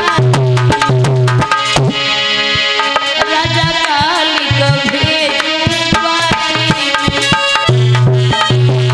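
Instrumental break in a Hindi devotional song: tabla drumming a steady beat under a melody instrument playing held notes, one of them wavering about four seconds in, over a deep bass note that drops out in the middle and returns near the end.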